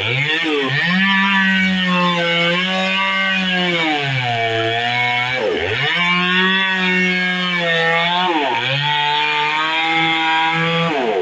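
Two-stroke chainsaw running at high revs while cutting into a tree trunk. Its pitch sags for about a second around the middle as the engine labours under the cut, and dips sharply and climbs back about four times as the throttle is eased and reapplied.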